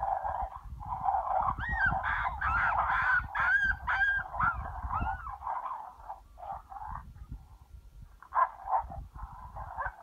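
Predator-calling sound: a string of wailing, yelping animal cries that rise and fall in pitch, strongest about two to five seconds in and thinning out after that. Wind rumbles on the microphone underneath.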